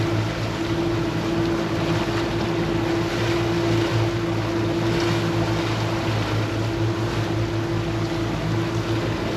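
Boat engine running steadily with a constant hum, over a steady rush of wind and water.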